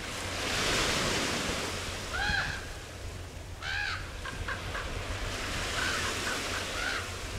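Common raven calling: a run of hoarse, arched calls, the two strongest about two and four seconds in, with shorter calls later. Under them runs a steady hiss of lapping water and wind.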